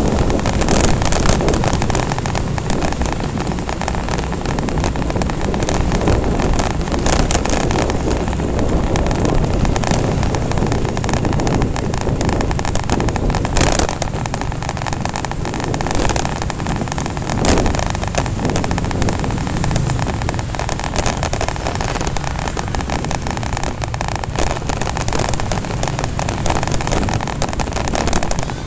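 Honda Revo FI motorcycle on the move: steady wind buffeting the microphone over engine and road noise.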